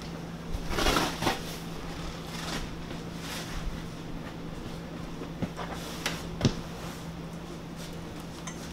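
Rustling and light knocks of handling noise: a short rustle about a second in, then a few sharp clicks and knocks later on, over a steady low hum.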